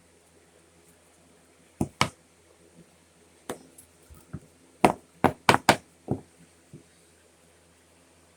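Sharp wooden knocks and clicks as CNC-cut pieces are popped out of a carved board: a couple of knocks, a single one, then a quick run of about five about halfway through.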